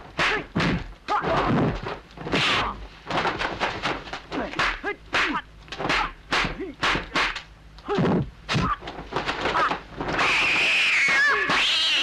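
Rapid series of dubbed punch and block impact sounds from a hand-to-hand kung fu fight, several strikes a second, broken by short shouts. About two seconds before the end, a long, loud, high-pitched wavering cry.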